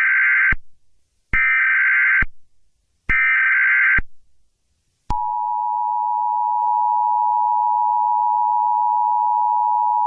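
Emergency Alert System header: three short bursts of warbling data tones (the SAME header, about a second each), then the steady two-tone EAS attention signal starting about five seconds in and holding unbroken.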